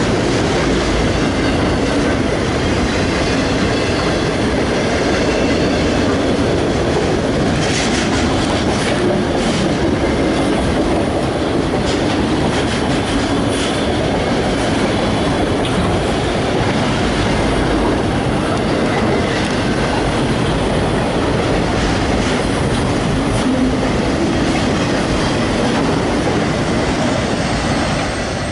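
Freight train passing close by: a steady rumble of cars rolling on the rails with clickety-clack over the rail joints and occasional brief wheel squeal, easing off near the end.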